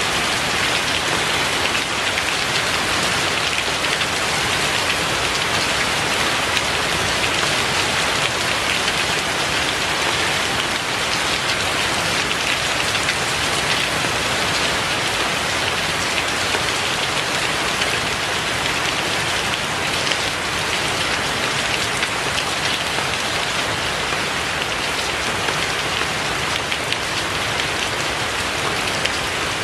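Steady rain falling: an even hiss of many drops that keeps the same strength throughout.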